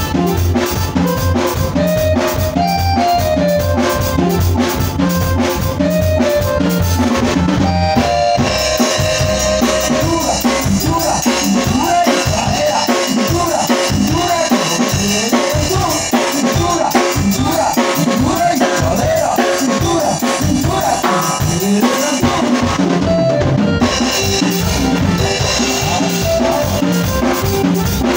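Band rehearsing a song: an electronic keyboard plays the melody over a drum kit with a steady beat. About eight seconds in, the deep bass drops out and the arrangement changes.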